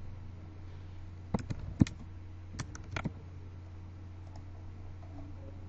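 Computer keyboard keys clicking as a short comment is typed, in two quick flurries about a second and a half in and again around three seconds, over a low steady hum.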